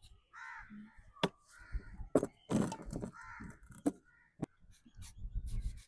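Crows cawing a few times, harsh raspy calls, mixed with sharp clicks and scrapes from potatoes being peeled.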